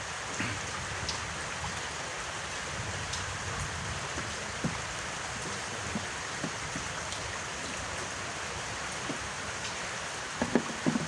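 Steady hiss of falling or running water, with a few faint ticks and a short cluster of louder knocks near the end.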